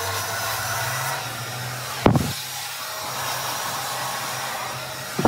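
Handheld hair dryer running steadily, a rushing blow of air over a low motor hum. A dull thump about two seconds in and another at the end stand out above it.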